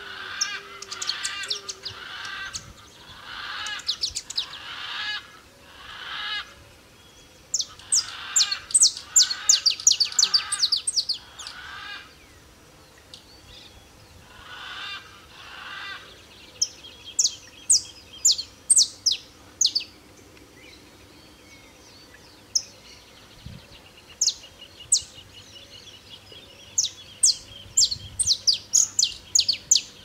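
Male saffron finch singing, phrase after phrase with short pauses between. The phrases mix runs of sharp, high chirping notes with harsher, rougher notes.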